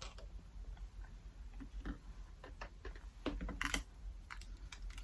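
Scattered light clicks and taps of makeup products and tools being handled close to the microphone, with a small cluster of sharper clicks a little past three seconds in.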